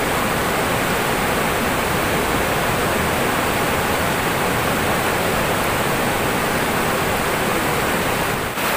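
Fast river rapids rushing over boulders: a steady, loud rush of water.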